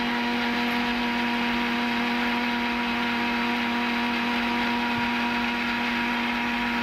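Electric mixer grinder running at a steady speed with a small jar, blending egg and oil into mayonnaise: a constant motor hum with a whirring hiss.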